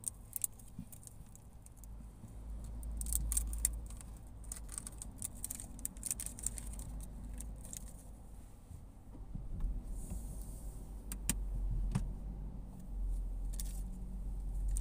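Car interior while queuing in traffic: a low engine and road rumble that gets louder about two-thirds of the way through as the car moves off, with irregular light jingling and rattling clicks from inside the cabin.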